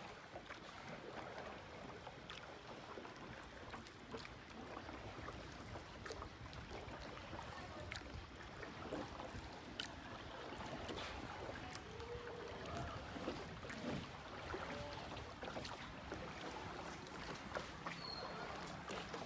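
Rowed boat moving over calm water: a low, even wash of water with scattered faint knocks and clicks.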